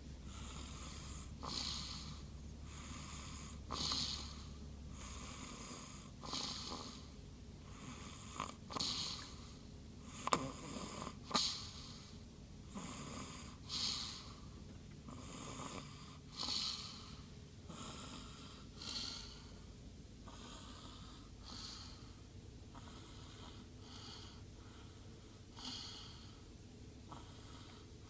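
A sleeper snoring, one breathy snore about every two to three seconds, the loudest few near the middle.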